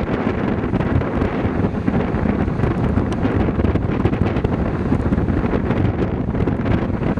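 Wind buffeting the microphone: a steady, rumbling rush of noise with no distinct events.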